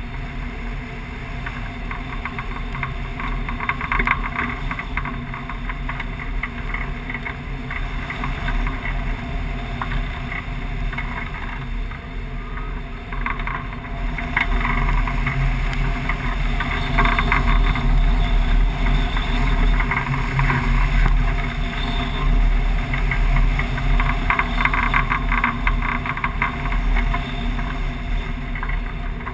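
Rushing airflow of a hang glider in flight buffeting a wing-mounted camera's microphone: a steady, wind-noise roar with a deep rumble underneath that grows louder about halfway through.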